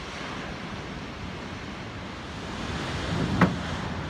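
Steady wash of ocean surf breaking along the beach. The wash swells near the end, and a single sharp click comes about three and a half seconds in.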